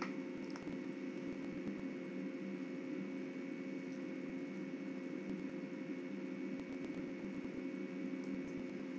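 Steady mechanical hum of room noise, even throughout, with a faint high whine over it and a few faint ticks.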